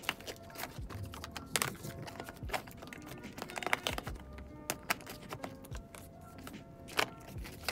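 Irregular clicks and taps of plastic makeup compacts and cases being handled, opened and snapped shut, over quiet background music.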